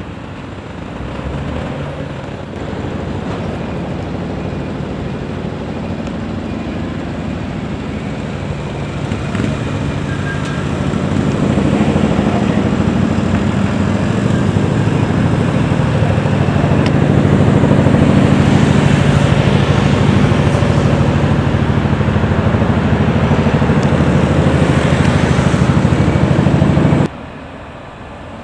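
A vehicle engine running on the move with road and wind noise. It grows louder as the vehicle speeds up about ten seconds in, holds steady, then cuts off sharply near the end.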